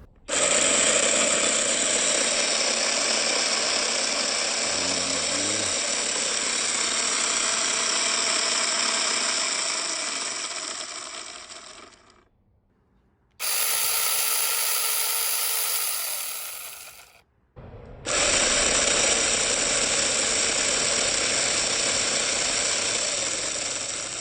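Battery-powered 6-inch mini chainsaw running free with its chain spinning and not cutting, in three runs. Each run starts suddenly and winds down as the trigger is let go. The long first and last runs are steady, and the middle one is shorter with a different tone.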